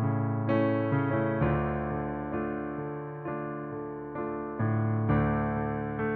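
Piano playing a slow hymn accompaniment in a minor key without voice: sustained chords struck every half second to a second, each fading before the next.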